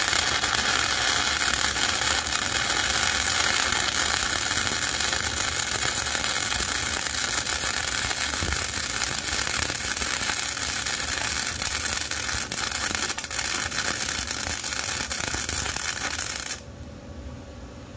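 Flux-core wire-feed welder laying a bead on a steel bracket: the steady crackling sizzle of the arc, which stops abruptly near the end.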